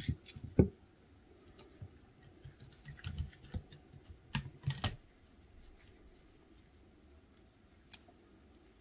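Light plastic clicks and knocks as gloved hands handle a plastic storage container and its strainer basket. The loudest knock comes about half a second in and a cluster of clicks follows from about three to five seconds; then it goes quiet but for one faint click near the end.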